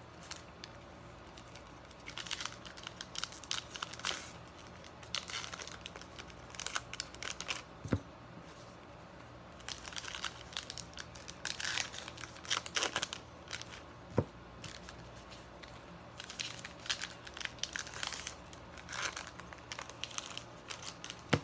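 Plastic shrink wrap being torn and peeled off a trading-card blaster box, crinkling in irregular bursts, with two sharp clicks about eight and fourteen seconds in.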